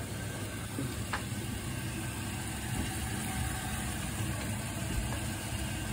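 Steady low rumbling hum of kitchen noise at a lit gas stove with a pan of bamboo shoots and noodles cooking, with a faint click about a second in.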